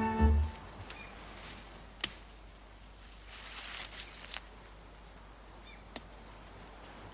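Bowed-string score music stops about half a second in, leaving a quiet background with a few sharp clicks and a short hissing rustle in the middle.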